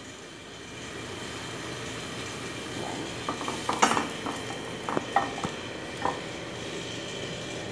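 Chopped garlic sizzling in olive oil in a stainless steel pot as a wooden spatula stirs it, knocking against the pot a few times midway.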